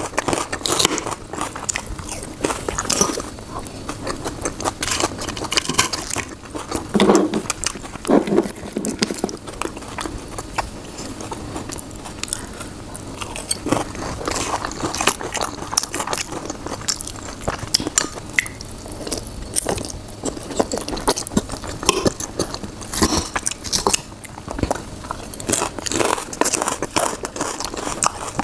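Close-miked eating sounds: chewing and biting with frequent small wet clicks and crunches, as in a mukbang.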